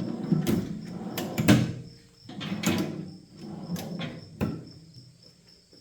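Metal drawers of a rolling tool cart sliding on their drawer slides and knocking shut, twice in the first three seconds, then a single sharp knock about four and a half seconds in.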